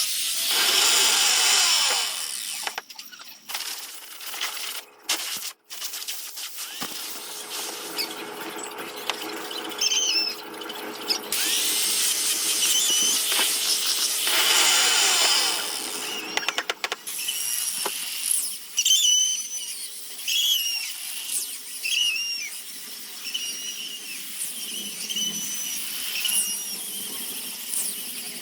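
Sanding on a zelkova wood basket: stretches of scratchy abrasive noise, with a run of short, high squeaks in the second half.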